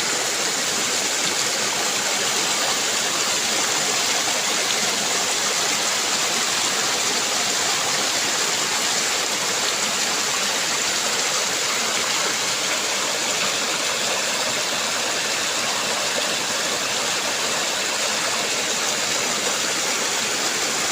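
Waterfall rushing steadily: an even hiss of falling water with no change in level.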